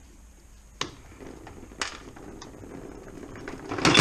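Hand tools working on a gearbox casing being stripped: a few sharp metallic clicks, then a scraping noise that builds into a loud metallic clatter near the end as something on the gearbox gives way.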